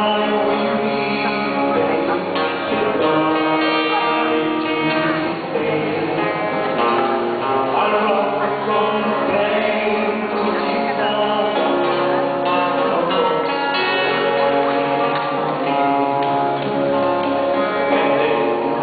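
Two men singing a gospel song as a duet, accompanied by a guitar.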